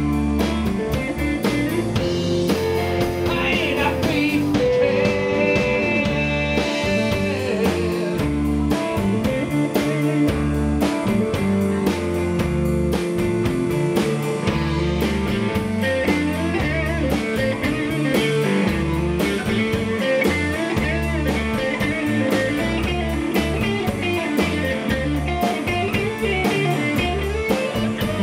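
Live rock band playing: electric guitars, electric bass and drum kit, with guitar lines over a steady beat.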